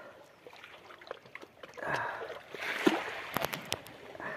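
Close handling of a freshly caught barracuda and its treble-hooked hard lure: wet rustling and slapping, with a few sharp clicks in the second half.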